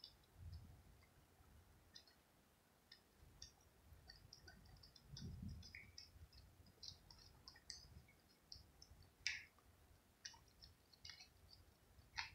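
A cat licking and chewing scraps of food off a white plate: faint, irregular wet clicks and smacks, with a sharper click about nine seconds in and another near the end.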